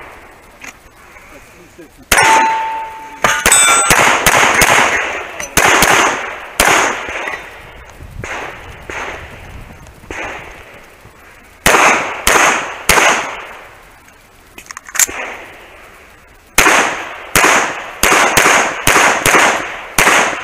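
Semi-automatic pistol shots fired close by, in quick strings of two to five with pauses of a few seconds between groups. A steady ringing tone lasts about a second after the first shot.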